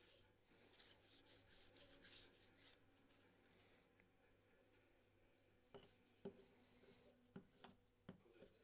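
Faint rubbing and scraping strokes, then several light taps and clicks from small tools handling a phone during repair.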